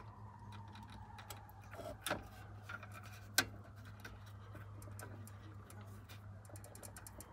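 Small clicks and scrapes of a metal pick prying at the plastic red locking clip on a car radio's wiring-harness plug, with two sharper clicks about two and three and a half seconds in, over a steady low hum.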